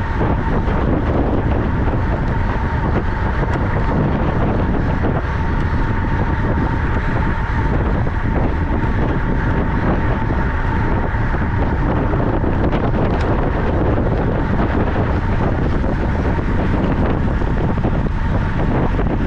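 Wind rushing over the microphone of a camera carried on a racing track bike at speed, a loud, steady roar with a thin, steady high whine running through it.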